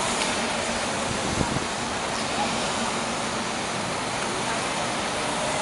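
A convoy of city buses driving past one after another: a steady wash of diesel engine and tyre noise.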